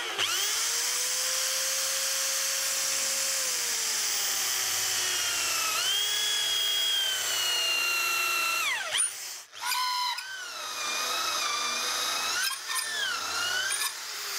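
Corded electric drill in a drilling stand running and boring a hole into an oak stool seat, its motor whine dropping and rising in pitch as the bit cuts. It cuts out briefly about nine and a half seconds in and starts again. The bit is dull and needs sharpening.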